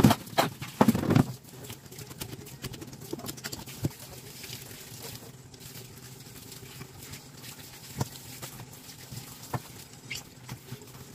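Tap water running and splashing into a stainless steel sink as fish pieces are rinsed by hand, with a few loud knocks and clatter in the first second and occasional small clicks after.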